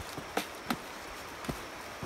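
A few short, sharp knocks and steps on a dirt trail as hikers move about, three of them standing out, over the steady running of a nearby river.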